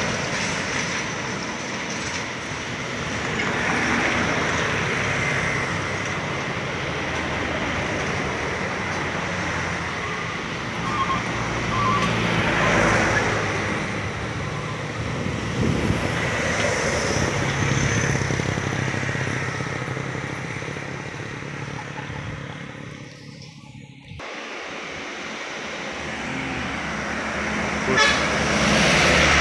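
Heavily loaded diesel trucks labouring up a steep climb, one after another, their engines swelling as each passes, with a few short horn toots midway. The sound drops away briefly near the end, then another truck grows louder as it approaches.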